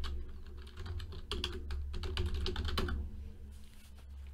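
Typing on a computer keyboard: quick, irregular key clicks for about three seconds, then stopping, over a low steady hum.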